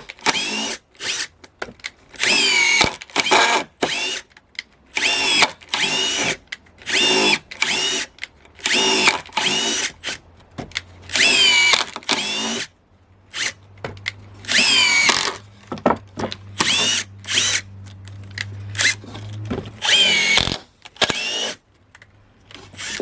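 Makita DTD154 brushless cordless impact driver run in a string of about fifteen short trigger bursts, each spinning up and winding back down, with brief pauses between them.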